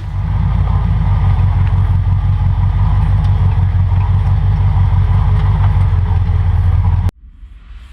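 Vehicle engine running steadily with a deep, evenly pulsing exhaust note. It cuts off abruptly about seven seconds in.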